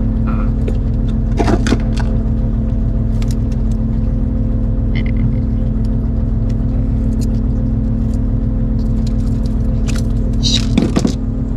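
Fishing boat's engine running steadily with a low hum, with a few brief knocks and clatters of gear being handled on deck.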